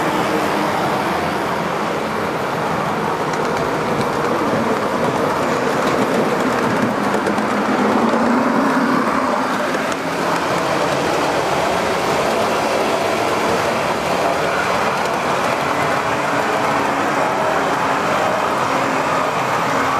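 O-scale model train running on its track, a steady mechanical rumble of motor, gears and wheels on the rails. A deeper hum swells briefly about eight seconds in.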